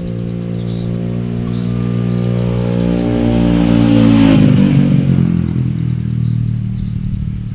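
Volvo six-cylinder diesel engine running, revved up to a peak about four seconds in and then easing back toward idle.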